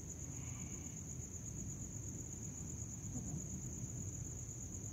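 Crickets chirring in a steady high-pitched trill over a low rumble on the microphone, with a faint short high tone just after the start.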